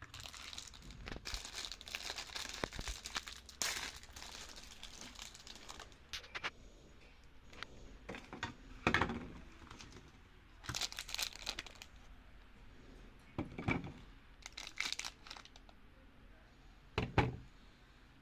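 Wrapping being crinkled and torn open by hand, most likely the soap's packaging, in irregular bursts of rustling with several louder crackles.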